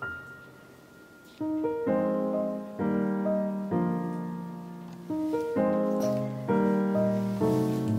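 Background piano music: a few soft single notes, then fuller chords from about a second and a half in.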